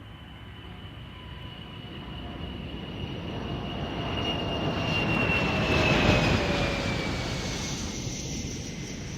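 Airplane flying past. Its engine noise builds to a peak about six seconds in, then fades, and its whine drops in pitch as it passes.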